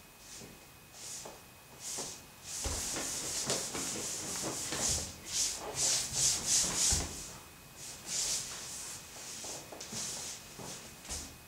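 Irregular rubbing or scraping strokes, a few a second, thickening and growing louder through the middle, with a few soft thumps among them.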